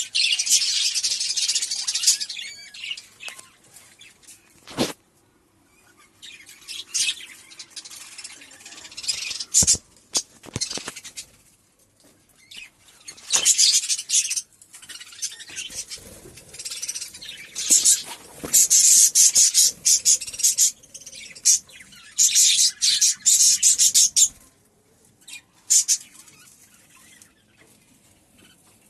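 Budgerigars chattering and chirping in bursts of a second or more, broken by short lulls, with a few sharp clicks or taps among them.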